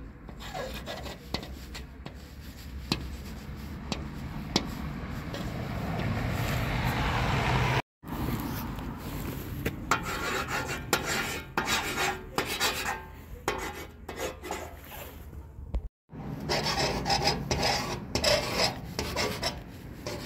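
Correction pen's metal tip scratching and rubbing across hard surfaces (glass, a painted panel, concrete) in quick writing strokes, over a low background rumble. The sound breaks off abruptly twice.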